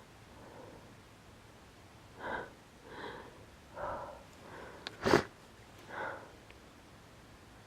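A person's quick hitching breaths as a pepper-induced sneeze builds, several in a row, then one short, sharp sneeze about five seconds in, the loudest sound, and one more breath after it.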